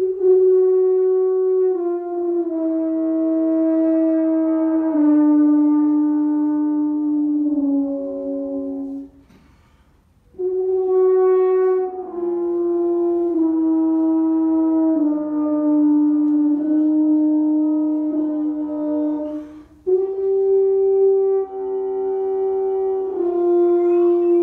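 Tuba playing a slow improvisation of long held notes, mostly stepping downward in pitch, with a pause about ten seconds in before a new phrase starts.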